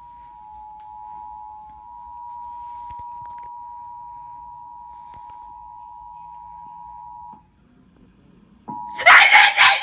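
Emergency Alert System attention signal: the steady two-tone alert (853 Hz and 960 Hz together) sounding from a TV recording, cutting off about seven seconds in. After a short gap, a loud burst of sound starts near the end.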